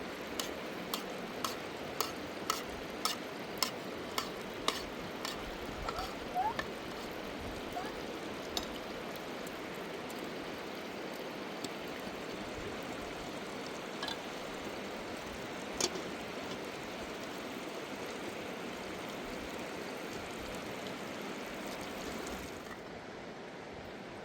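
Steady rushing of a fast river, with a run of sharp taps about two a second in the first few seconds and a few single taps later on.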